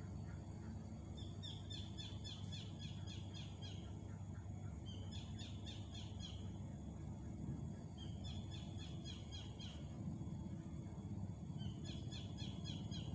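A songbird sings four times, each song a quick run of repeated high chirping notes lasting one to two seconds, a few seconds apart. Underneath is a steady low background rumble.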